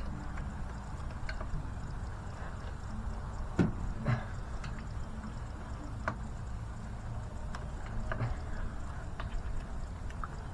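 A few sharp metallic clicks and knocks from hand tools working on engine parts, over a steady low background hum.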